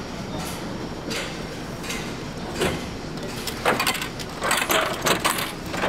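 Vending machine at work as a pack of rice is bought: scattered mechanical clicks, then a dense run of clicks and clacks in the second half as the machine dispenses. A steady low hum runs underneath.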